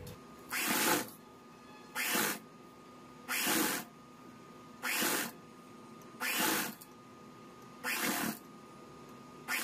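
Shanti straight-stitch sewing machine stitching in short spurts, six runs of stitches about one and a half seconds apart, as a bias strip is sewn around a curved neckline a little at a time.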